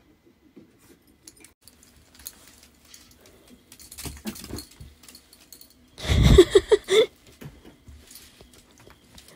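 Kitten and chihuahua scuffling on a wooden floor, with collar and leash jingling. About six seconds in comes a loud burst of about a second that holds four quick pitched cries.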